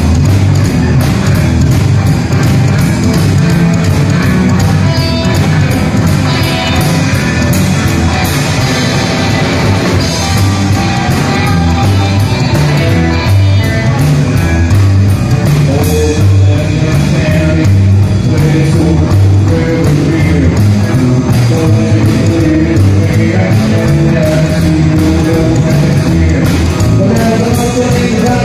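Live rock'n'roll band playing loudly: upright double bass, hollow-body electric guitars and a drum kit keeping a steady beat.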